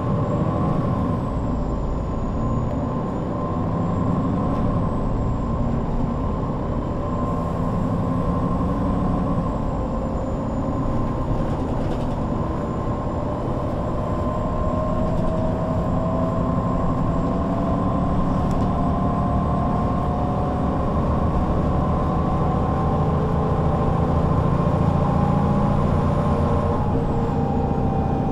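MAN NL 263 low-floor city bus driving, its six-cylinder diesel engine running steadily with a drivetrain whine that slowly climbs in pitch. A thin high whistle sits above it. Near the end the whines drop away as the bus eases off.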